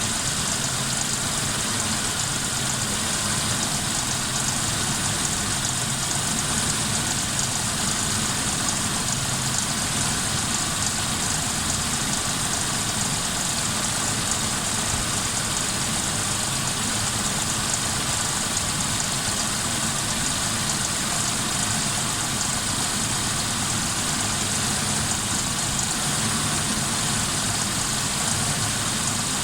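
1999 Suzuki Grand Vitara's 2.5-litre V6 idling steadily; the engine has the misfire (loss of ignition) it is being diagnosed for.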